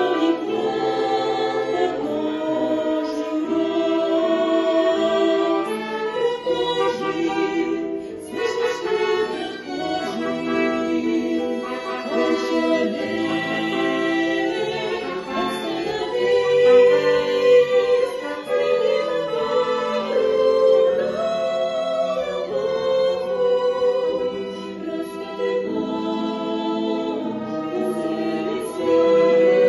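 A choir singing a slow religious song, with long held notes that change every second or two.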